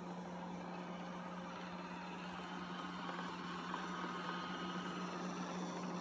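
LG Roboking robot vacuum cleaner running on carpet in turbo mode: a steady motor hum with an even rush of suction and brush noise over it.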